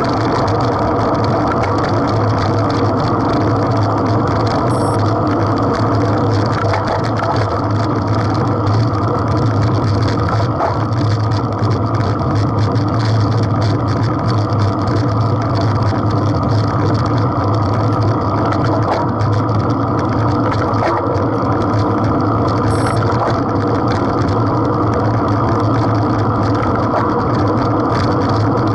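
Steady, loud riding noise on a bicycle-mounted camera at speed: wind and road rumble with a low hum that holds throughout.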